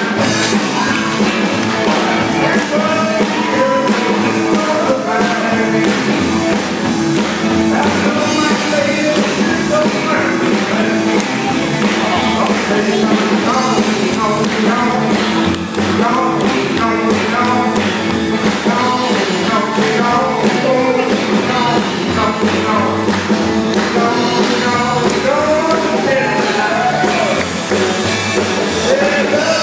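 Up-tempo song with a singer over a steady drum beat and guitar, played as music for swing dancing.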